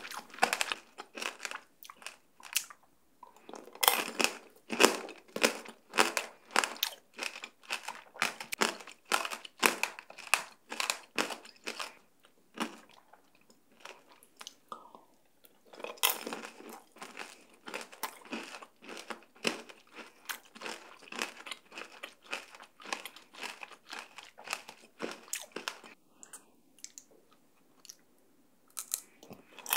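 Close-miked crunching and chewing of grape tanghulu: the hard sugar shell on green grapes cracking between the teeth in many sharp crackles, easing off briefly twice between bites.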